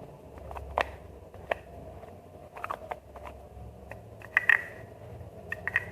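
Small plastic packaging being handled and pried open by hand: scattered clicks, taps and light rustles, a cluster of sharper clicks about four and a half seconds in.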